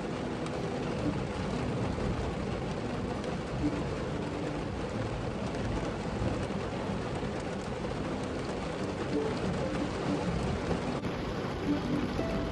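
Steady rain falling on a vehicle's roof, heard from inside the vehicle.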